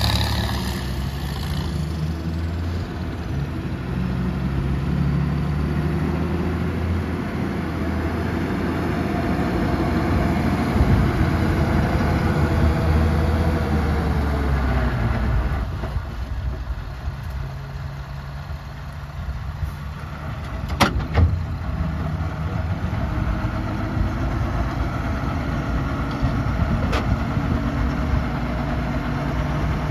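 Heavy diesel engine of construction machinery running, its engine speed dropping about halfway through and then settling at a lower, steady run. A sharp metallic clank about two-thirds of the way in, and a lighter one near the end.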